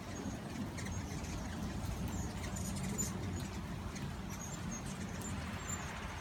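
Hummingbirds chipping and squeaking around the feeders in many short, high chirps scattered through, over a low steady background rumble.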